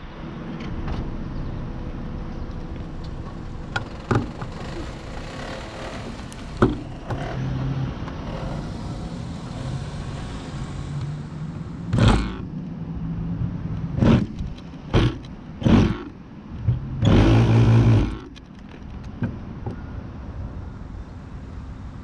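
Handheld electric starter spinning a model airplane's engine through the propeller spinner in short whirring bursts, four brief ones and then a longer one of about a second, each cutting off when the starter is lifted. The engine does not keep running after the bursts.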